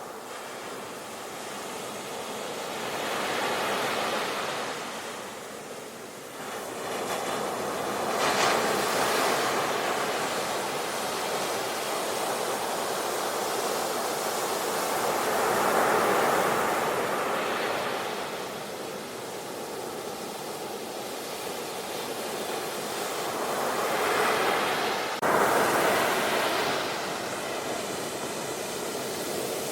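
Ocean waves breaking and washing ashore, the surf swelling and easing every few seconds, with a sudden jump in level near the end.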